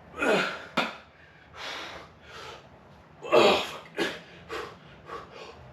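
A man breathing hard from weightlifting exertion: about eight loud, ragged gasps and exhales at uneven intervals, the strongest about three and a half seconds in. A brief sharp click comes just under a second in.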